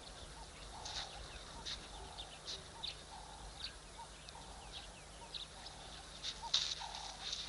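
African wild dogs twittering: many short, high-pitched, bird-like chirps in quick irregular succession.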